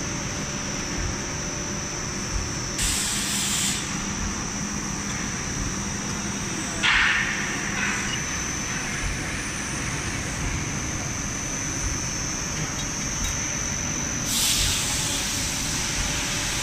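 Steady machinery noise of a running HDPE blown film extrusion line, with a thin, steady high whine. Three short bursts of hiss, about a second each, come roughly 3, 7 and 14 seconds in.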